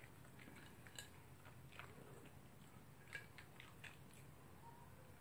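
Toy poodle eating dog food from a bowl: faint, scattered crunches and clicks of chewing, roughly one a second.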